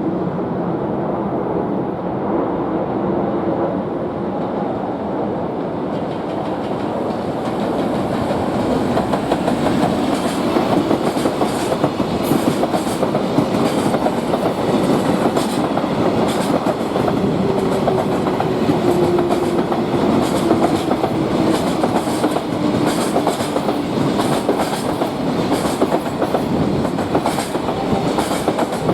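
Freight train passing at speed: a steady rumble of wheels on rail that grows louder about eight seconds in, with wheels clicking over rail joints. Midway a faint tone slowly drops in pitch.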